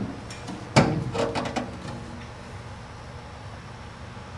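A single knock about a second in, followed by a quick run of light clicks, then only a low steady hum.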